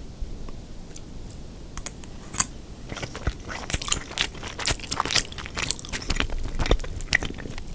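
A person chewing food close to the microphone: quiet at first, then from about two and a half seconds in a dense run of crisp crunches and clicks.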